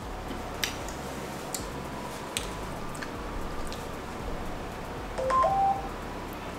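Low hiss with a few faint clicks, then about five seconds in a short electronic beep, a half-second run of tones stepping between pitches.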